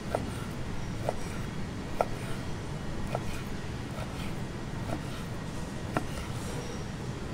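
Kitchen knife slicing raw beef rib meat on a wooden cutting board, the blade knocking on the board about six times, roughly once a second, over a steady low hum.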